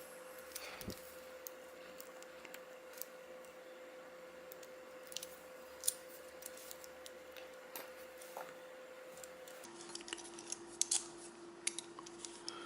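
Faint, scattered small metal clicks and ticks of a Zegman padlock being worked with small metal tools, a few sharper ones near the end, over a steady low hum.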